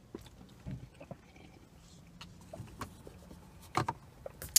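Quiet sips and swallows from paper cups, with scattered small mouth and cup clicks and a couple of sharper knocks near the end.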